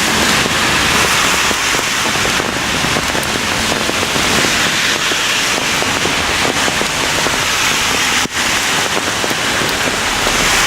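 Heavy rain falling steadily, a dense crackle of close drop impacts, with a brief lull about eight seconds in.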